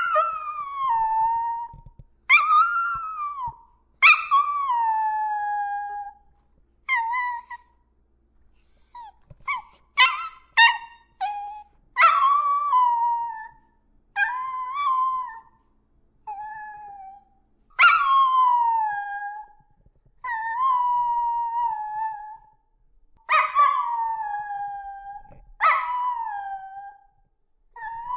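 A lone canine howling over and over. Each howl starts high and slides down in pitch over a second or two, with a quick run of short yelps about a third of the way through.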